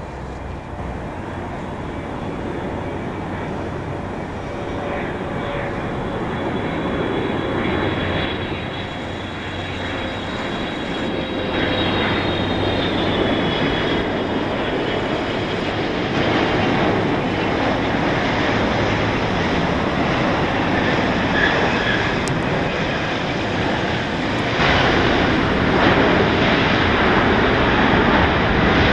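Boeing 777F freighter's GE90 jet engines on a landing approach and rollout: a steady jet noise with a faint high whine, growing louder as the aircraft comes over the runway and touches down, and louder again near the end.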